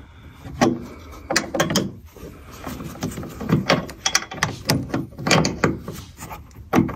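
Irregular metal clicks and knocks, about a dozen, as the end fitting of a gas hood strut is worked and snapped onto its ball-stud mount on a Sprinter van.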